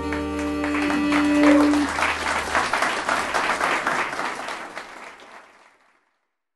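A jazz band's final held chord dies away as audience applause starts about a second in, then the applause fades out.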